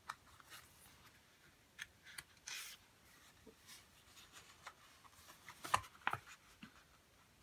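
Faint handling of a planner sticker sheet: light rustling and crinkling as stickers are picked over and one is peeled off, with scattered small ticks, a brief hiss about two and a half seconds in, and a sharper pair of clicks about six seconds in.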